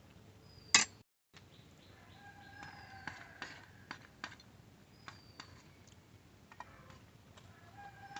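Scattered clicks and knocks with short bird chirps and calls over a low background. A sharp loud click comes just under a second in, followed by a brief dropout to silence.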